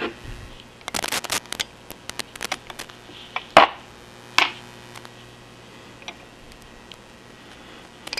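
Small open-end wrench clicking against a bolt head on a lathe apron casting as the bolt is worked loose: a quick run of light metal clicks, then two sharper clinks about halfway through, then a few faint ticks.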